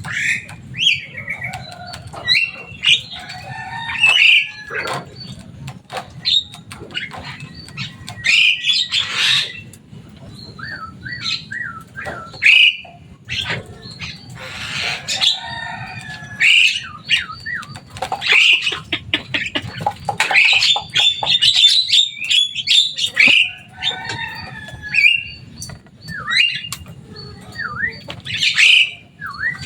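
Javan myna calling: a busy, varied string of harsh squawks, chirps and whistled glides, with hardly a pause, over a low steady hum.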